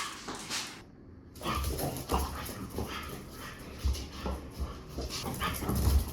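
A dog whimpering and giving short yips, with low thuds from movement in between.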